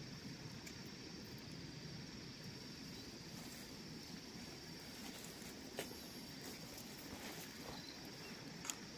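Faint background noise: a steady hiss with a thin, high steady tone running through it, and two light clicks, one about six seconds in and one near the end.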